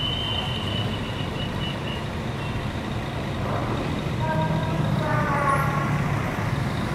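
Coach diesel engines idling, a steady low rumble. A thin high steady tone sounds for the first couple of seconds, and a steady pitched tone with several overtones comes in about four seconds in.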